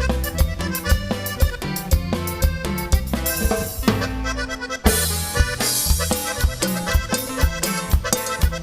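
Instrumental Latin dance music: an accordion melody over bass and drums with a steady beat. There is a short break about four seconds in, where a held bass note sits under a cymbal wash before the beat returns.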